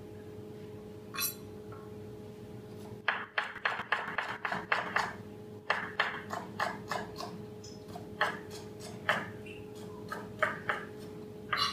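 Chef's knife finely chopping celery on a plastic cutting board: a single knock about a second in, a quick run of chops about three seconds in, then slower, uneven chops. A steady hum runs underneath.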